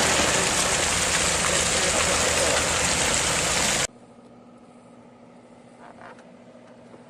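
Heavy truck driving: a loud, steady rushing noise with a low engine drone underneath. It cuts off abruptly about four seconds in, leaving a faint low engine hum.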